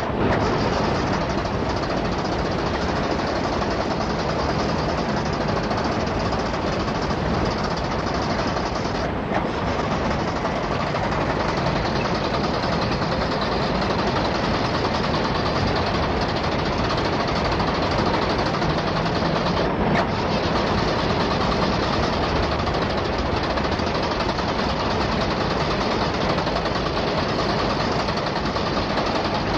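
Alfa Romeo Alfetta engine being cranked over by its starter motor without catching and running: a long, steady mechanical churning that goes on without a break.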